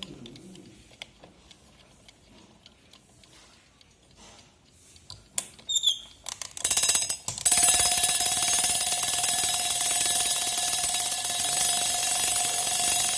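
Mechanical alarm of a 1940s JAZ wind-up alarm clock: a few seconds of faint ticking, a few clicks, then about six and a half seconds in the bell starts ringing loud and steady, its hammer striking many times a second.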